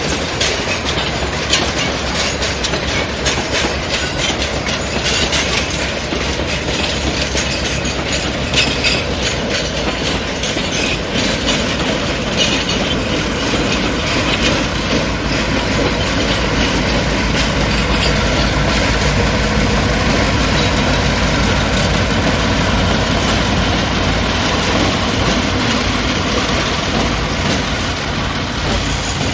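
Freight train rolling past with steady wheel clatter. From about halfway, EMD GR12 diesel locomotives pass with a deep engine rumble that swells and then eases off near the end.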